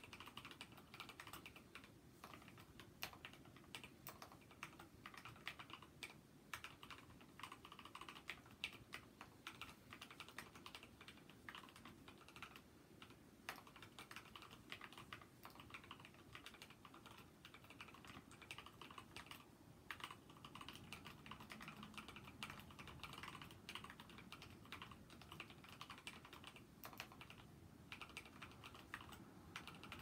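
Steady typing on a Drevo Gramr mechanical keyboard fitted with lubed Gateron Clear 35g linear switches and thick XDA-profile keycaps, giving a deep, thocky clatter of keystrokes. The typing is dense, with a few short pauses.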